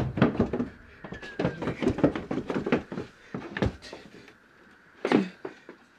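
A wooden door and its handle rattled and knocked: a quick, irregular run of knocks for about four seconds, then one more about five seconds in.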